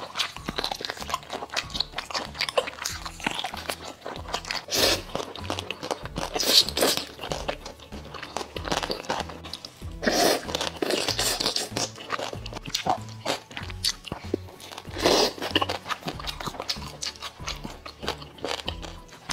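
Close-miked eating: biting and wet chewing, with louder slurps of spicy noodles about ten seconds in, over background music with a steady beat.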